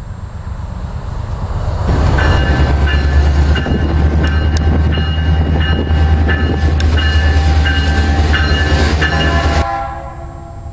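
Diesel passenger locomotive running close by with a heavy low engine rumble, its bell ringing repeatedly. The sound cuts off abruptly near the end, leaving a fainter, distant train sound.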